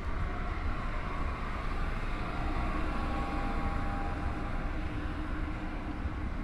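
Steady low rumble of city street traffic, with a vehicle engine running close by.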